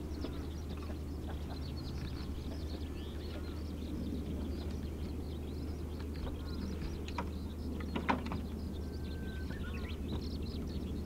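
Outdoor ambience of many small birds chirping over a steady low hum, with a single sharp knock about eight seconds in.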